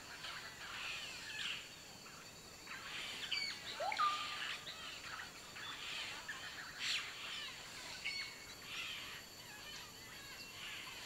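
Rainforest ambience of many short bird chirps and whistles, one call rising and then holding as a whistle about four seconds in, over a steady thin high-pitched insect tone.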